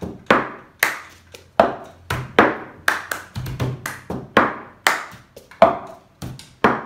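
Cup-rhythm game on a plastic cup and tabletop: a quick, even pattern of hand claps, slaps on the cup and the cup knocking down on the table, repeating with no pause.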